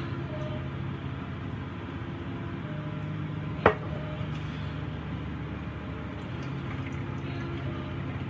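Canned whole tomatoes being emptied out of a tin can into a bowl and handled, wet squelching and sloshing over a steady hum, with one sharp knock a little under halfway through.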